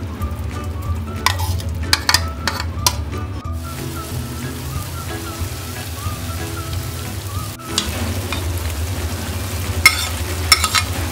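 Marinated chicken sizzling and bubbling in hot oil in a frying pan. A metal spoon scrapes and clinks as the chicken is pushed in during the first few seconds. Near the end, sliced onions are tipped in with a couple of sharp clinks.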